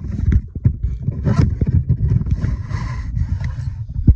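Scraping, rustling and a dense run of small knocks as seat belt webbing is worked through the plastic center console of a car interior.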